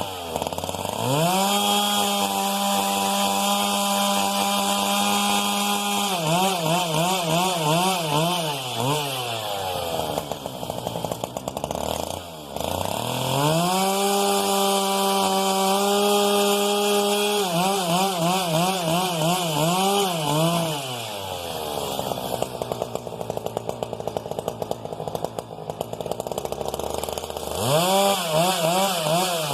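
Husqvarna 395XP 94 cc two-stroke chainsaw revving up to full throttle and holding steady for about five seconds, then warbling as it drops back to idle. This happens twice, and the saw idles before revving up again near the end.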